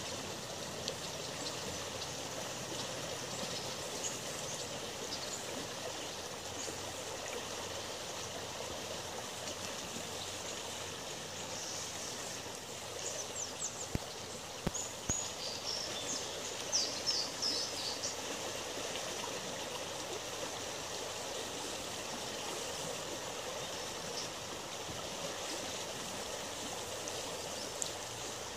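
A shallow river riffle: water running steadily over gravel and stones. A few short, high chirps come in around the middle.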